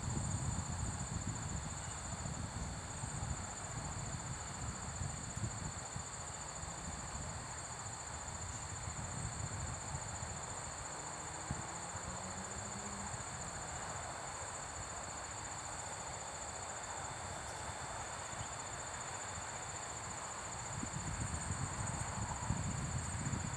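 Steady chorus of insects, a continuous high-pitched chirring, over a low rumbling noise that eases after the first few seconds and swells again near the end.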